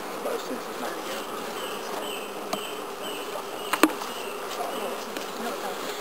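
Honeybees buzzing steadily from an open hive, with a few sharp clicks of a metal hive tool on the wooden frames: one faint click about two and a half seconds in and a louder double click just under four seconds in.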